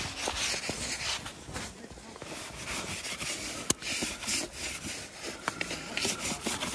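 Crunching and scraping of boots and gloved hands moving through deep snow, with the metal body-grip trap and its chain clinking as it is pulled from the trap box, including one sharp click about halfway through.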